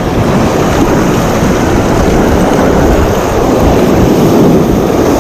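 Surf washing and breaking right around the microphone, mixed with wind buffeting it: a loud, steady, deep rushing noise.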